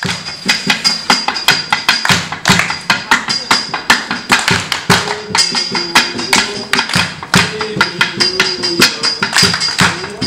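Group worship singing with a fast, steady beat of sharp hand claps, about four a second; the voices are faint beneath the clapping and come through more clearly in the middle.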